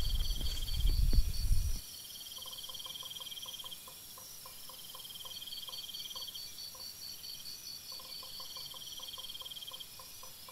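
Crickets chirping in pulsed high trills that start and stop every couple of seconds, with a second caller ticking softly at about four ticks a second. For the first two seconds a low rumble lies over them and then drops away.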